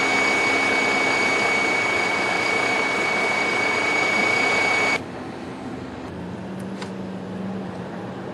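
MAN truck driving slowly through deep loose gravel: a loud, steady mechanical noise with a high steady whine. About five seconds in it cuts off suddenly to a much quieter steady low hum.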